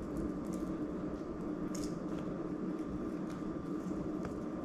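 Faint crisp squeaks and crackles of raw onion slices being pulled apart by hand and dropped onto parchment paper, a few scattered ticks over a steady hum.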